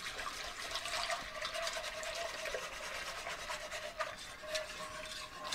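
Milk pouring in a steady stream from a glass measuring cup into an enameled cast-iron pot of hot cocoa syrup.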